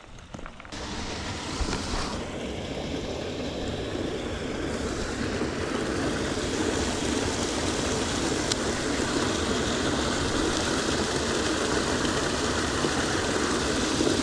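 Steady rush of water flowing in an irrigation channel, starting abruptly about a second in and growing a little louder.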